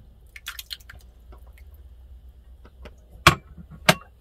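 Canned diced tomatoes plopping and splashing wetly into a pot of broth, in a few quick splats in the first second. Two sharp knocks follow about three seconds in, half a second apart, the loudest sounds.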